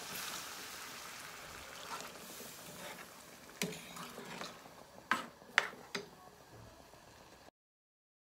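Caldereta sauce simmering in a frying pan with a faint sizzling hiss that fades as evaporated milk is poured in and stirred with a metal ladle. About halfway through, the ladle knocks sharply against the pan four times, then the sound cuts off near the end.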